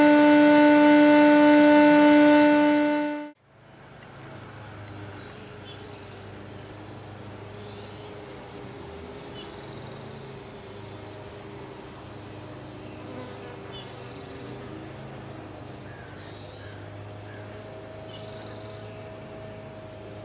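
Shop-vacuum bee vac motor whining steadily at full volume, stopping abruptly about three seconds in. After it, a quieter steady hum of honey bees buzzing around the opened hive in the tree.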